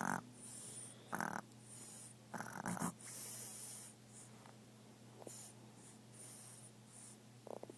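A sleeping animal snoring: three short, loud snores about a second apart in the first three seconds, then a long breathy breath and only faint, soft snores around the middle and near the end.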